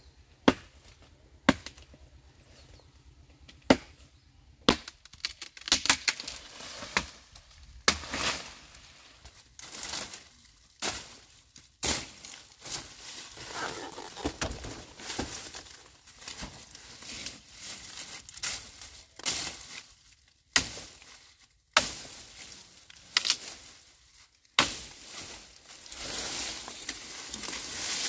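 A series of sharp chopping blows at irregular intervals, about one every second or two. They are sparse at first, then from about five seconds in they come with rustling and scraping between the strokes.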